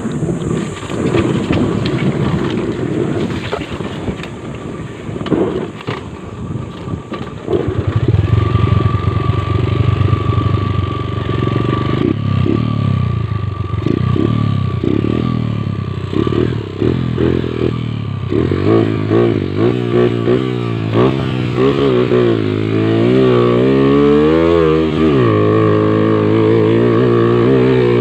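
Motorcycle engine revving hard under load as the bike works up a slippery climb. In the second half the pitch rises and falls quickly again and again in short bursts of throttle.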